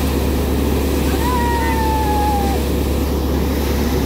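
Land Class paddy thresher driven by a Mahindra tractor running steadily under load as paddy is fed in: a dense, even mechanical drone. About a second in, a long high call sounds over it and slowly falls in pitch.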